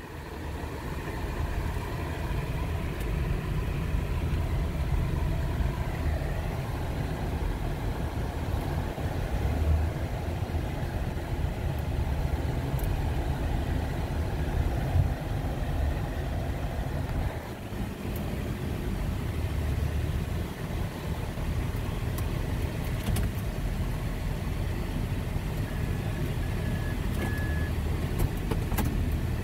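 Van engine and road noise heard from inside the cabin while driving: a steady low rumble. A short, faint high tone sounds near the end.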